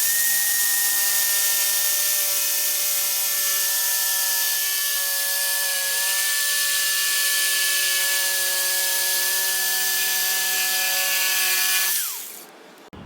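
Hoyoma 650 W jigsaw running at a steady high whine while its blade saws through a wood board, with a slight dip in pitch about halfway; about twelve seconds in, the motor winds down and stops.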